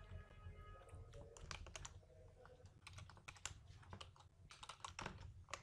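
Faint computer keyboard typing: scattered key clicks coming in short runs throughout.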